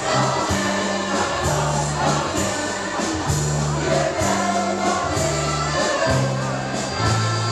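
Mixed choir singing in chorus, accompanied by a small live band of accordion, guitar and drums, with a steady drum beat and held bass notes under the voices.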